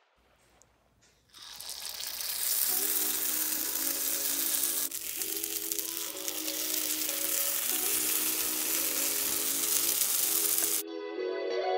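Batter sizzling in hot oil in a cast-iron paniyaram (appe) pan, a steady hiss that cuts off suddenly near the end. Background music with a slow melody plays along with it.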